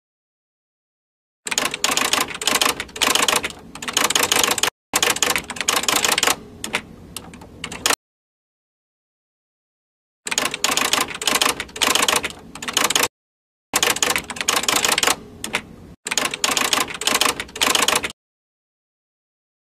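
Typing sound effect: a rapid clatter of keystrokes in about five runs of two to three seconds each, separated by gaps of dead silence. It goes with on-screen text being typed out line by line.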